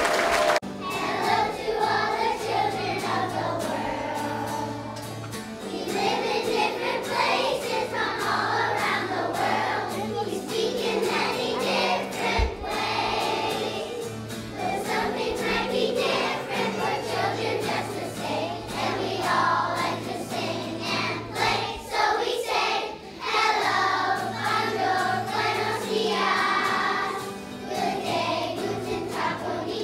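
A group of young children singing a song together as a choir, over a musical accompaniment with steady low notes.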